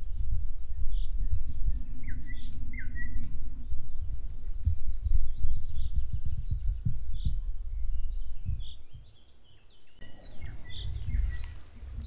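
Nightingale singing short, spaced notes and a few quick sweeping phrases, not yet long trills, under a heavy low rumble on the microphone.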